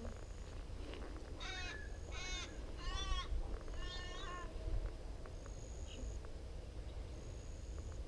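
An animal calling four times in quick succession, each call short with a rippling pitch that rises and falls, over a low wind rumble on the microphone.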